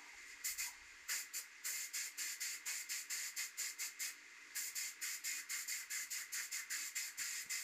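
ANI spray gun spraying solid black base coat onto a motorcycle frame: a hiss that comes in quick, even bursts of about three to four a second, with a short break about four seconds in.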